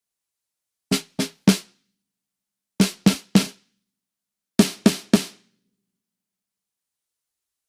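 Built-in factory drum samples of a Trig Mic Gen2 trigger, played as three groups of three quick hits about a third of a second apart, with clean silence between the groups. The silence between hits carries no room sound.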